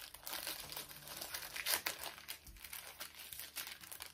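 Plastic mailing bag being cut open with scissors and handled, a continuous crinkling and crackling of thin plastic with a louder crinkle a little under two seconds in.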